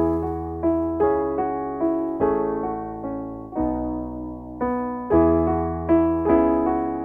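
Solo keyboard music: notes and chords struck about twice a second, each fading away, over held bass notes.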